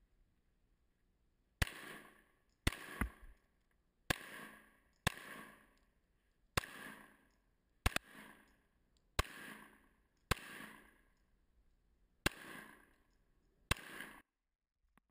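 Pistol firing about a dozen shots at an uneven pace of roughly one a second, with a longer gap near the end. Each shot is a sharp crack followed by a rolling echo that dies away in about a second.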